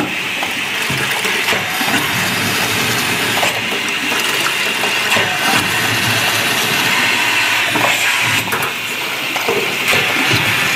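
Bucket-milker washer running its wash cycle: a vacuum pump runs while wash water is sucked up through the milker claw and hoses into the washer's clear chamber, a steady hissing rush of air and water.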